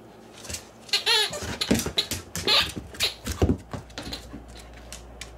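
A dog chewing and mouthing a small rubber toy ball: a quick, irregular run of crunches and knocks, with a short squeak falling in pitch about a second in. A few fainter clicks follow near the end.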